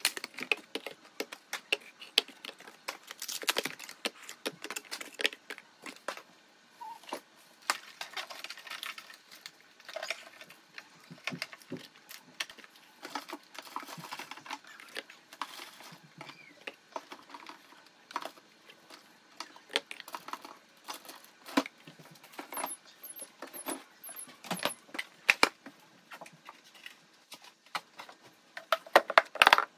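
Small objects being handled: irregular light clicks and taps with soft rustling between them, and a cluster of sharper knocks near the end.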